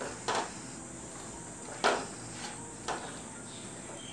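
Wooden spatula stirring and scraping fried idli pieces in thick sauce in a non-stick frying pan, with three short scrapes about a second apart, the middle one loudest.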